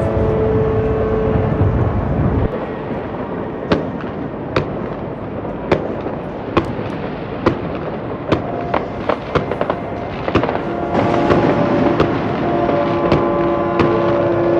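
Fireworks going off, with a string of sharp bangs and crackles. Boat horns sound steadily over them at the start and again from about eleven seconds in.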